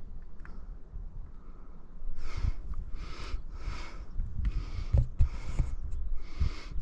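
A hiker breathing hard, with heavy, rhythmic breaths about one every three quarters of a second starting about two seconds in, over low thumps and rumble on the body-worn camera's microphone.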